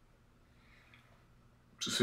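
Faint low hum, then about two seconds in a short, loud burst of sound from a person.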